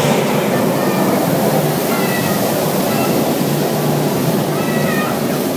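Tall fountain water jet running, a steady loud rush of spraying and falling water that starts abruptly as the jet fires. A few faint, brief high-pitched sounds come through over it.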